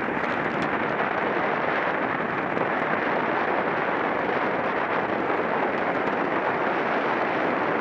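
Steady rushing wind noise on the microphone of a camera carried on a racing bicycle at speed.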